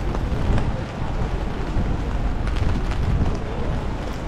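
Rainy city street ambience: a steady low rumble of rain, wind on the microphone and traffic, with a few light ticks of drops about two and a half to three seconds in.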